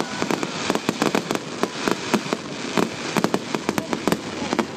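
Fireworks display: aerial shells bursting and crackling in a rapid, irregular string of sharp bangs, several a second.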